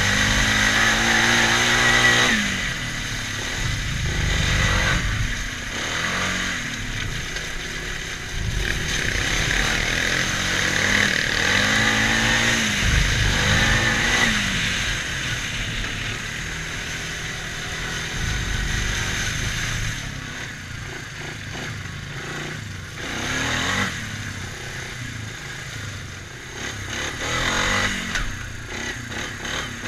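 ATV engine under way on a dirt trail, its pitch rising and falling over and over as the throttle is opened and eased.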